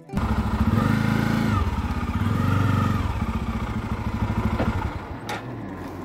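Motorcycle engine running at low speed with an even, rapid putter, swelling twice in the first three seconds as the bike rolls along, then dropping quieter after about five seconds, where a sharp click is heard.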